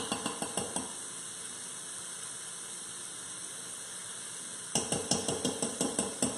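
A spoon clattering against the Instant Pot's inner pot in two quick runs of taps, one at the start and a longer one about five seconds in, as buttery spread is scooped and knocked into the pot. A steady sizzle from the pot runs underneath.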